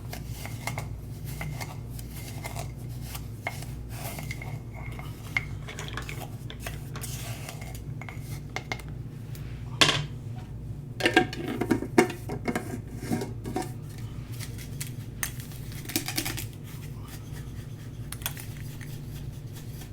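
A utensil scraping and clinking against a jar while stirring dry powdered homemade dishwasher detergent, with irregular scrapes and several louder knocks about ten, twelve and sixteen seconds in.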